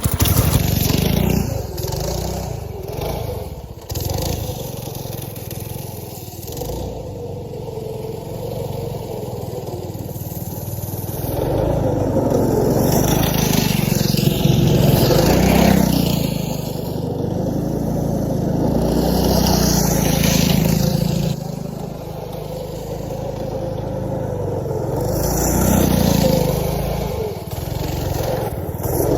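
Go-kart's small engine running through its exhaust, revving up and easing off several times as the kart is driven, the pitch rising and falling with each pull.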